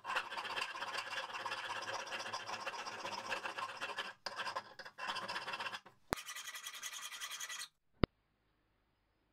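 Round file scraping back and forth inside the steel eye of a hammer head, a steady dry metal-on-metal scratching with a short break about four seconds in. About six seconds in a click is followed by a brighter stretch of scraping, then a second sharp click near the end, after which it falls almost silent.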